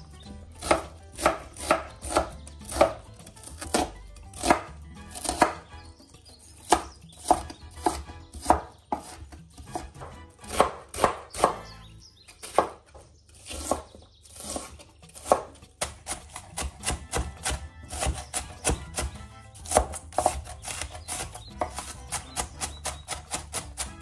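Chef's knife chopping onions on a wooden cutting board, with crisp strokes about twice a second that speed up to quick, even chopping about two-thirds of the way through as the diced onion is minced.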